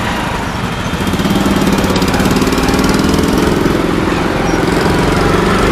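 Motorcycle engine running steadily under way, with a fast, even pulsing that grows a little louder about a second in.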